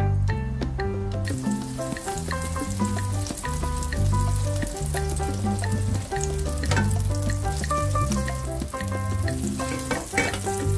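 Butter sizzling in a frying pan as it melts and foams, the hiss starting about a second in, over background music with a steady bass line.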